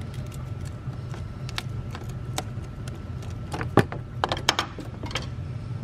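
Small metallic clicks and taps of a screwdriver working the worm-gear hose clamp on a Jeep's turbo intake hose. They come scattered, with a quick cluster of sharper clicks a little under four seconds in.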